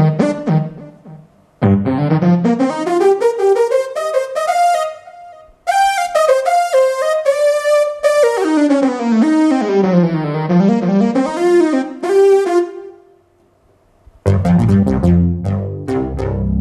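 Casio XW-G1 synthesizer played as a lead: fast runs of bright, buzzy notes in a single melodic line, climbing and falling, with two short breaks. Near the end, after a brief pause, a fuller patch with low bass notes and chords comes in.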